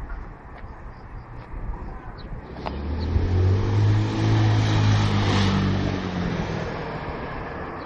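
A car passing: its engine and tyre noise swell about three seconds in, peak around five seconds, then fade away.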